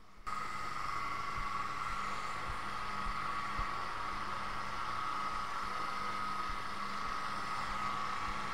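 Abrasive belt linisher running steadily: a constant motor hum under a steady high whine, starting abruptly just after the beginning.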